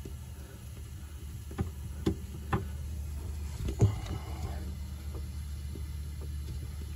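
Small metallic clicks and taps, four of them about a second and a half to four seconds in with the last the loudest, as a hex-socket plug is worked by hand back into a hydraulic valve block, over a steady low hum.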